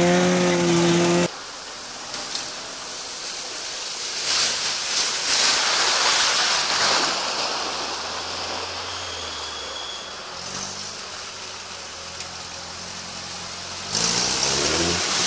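Off-road 4x4 engines working in mud: an engine revving hard in the first second, then a steady rushing noise with a faint engine running in the distance, and an engine revving louder again near the end as the vehicle comes through the mud.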